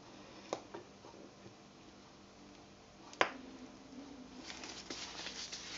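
Light handling noises from gloved hands on a plastic piping bag: a few sharp clicks, the loudest about three seconds in, then a brief crinkly rustle near the end.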